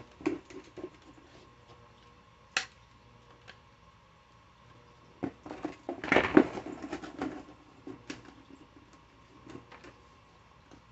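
Soft-plastic lure package being handled and opened by hand: scattered light clicks and crinkles, busiest about six seconds in.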